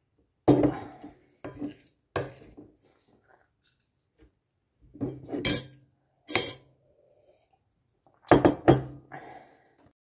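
Dishes and cutlery clinking and knocking: a mug picked up and set down on the table and metal cutlery against a ceramic bowl, as scattered sharp clinks with a quick double clink near the end.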